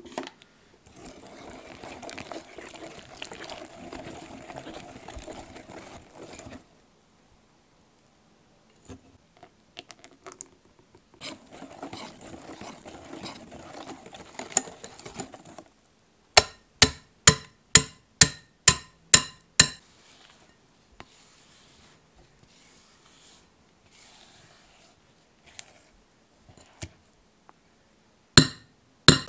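Wire whisk stirring batter in a glass bowl, in two spells of steady scraping, then a run of about nine sharp taps, about two and a half a second. One loud knock near the end.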